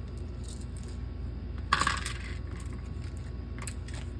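A handful of small wooden game-marker discs dropped onto a hard surface, clattering together in one brief burst about two seconds in. A few light clicks follow near the end.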